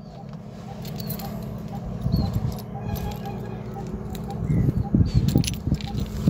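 A bunch of keys jangling and clinking as the keyring is pulled out and handled to open a padlock, the clinks coming in clusters and loudest in the second half.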